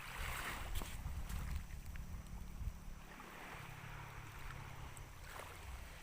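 Wind buffeting the microphone in gusts, with water washing at the shore in a few swells of hiss and a few faint knocks.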